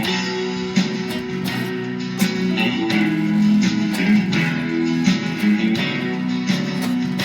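Instrumental music: an accordion holding sustained chords and a melody over a steadily strummed guitar beat.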